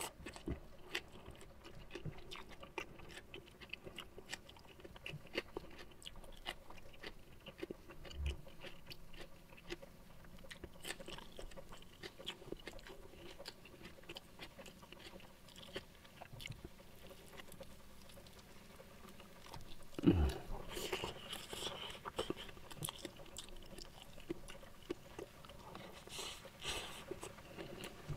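Close-miked chewing and mouth sounds of a person eating rice and side dishes by hand: many small, wet clicks and crunches. One louder knock about twenty seconds in.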